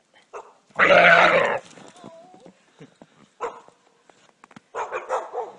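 Young white-tailed deer giving one loud, long distress bawl about a second in while tangled in wire, followed by fainter short sounds near the end.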